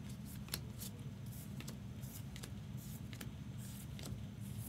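Trading cards being flipped through by hand, a quick irregular run of soft clicks and slides as each card is moved off the stack, over a steady low hum.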